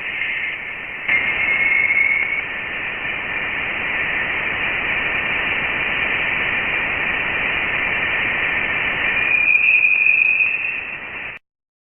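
Saturn's radio emissions converted into sound: a steady hiss with a high whining tone that swells twice, cutting off suddenly near the end.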